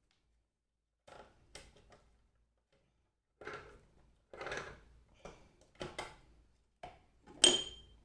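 Kitchenware being handled on a counter: a series of short knocks and clatters, with a louder clink and a short ring near the end.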